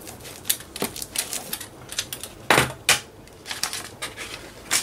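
Irregular sharp clicks and taps of craft tools and materials being handled on a work table, with two louder knocks about two and a half seconds in.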